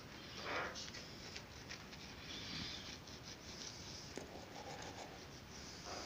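Toothbrush scrubbing teeth: soft, irregular, scratchy rubbing strokes.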